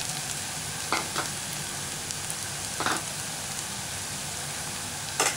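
Onions, tomatoes and curry leaves frying in oil in a steel pan: a steady sizzle, broken by a few short knocks, two about a second in, one about three seconds in and one near the end.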